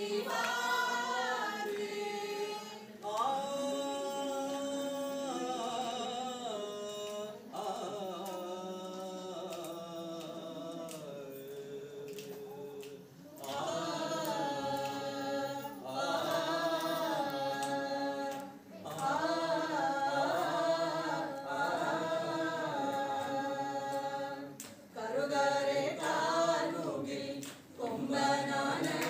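A group of voices singing a Malayalam song, in phrases with short breaks between the lines.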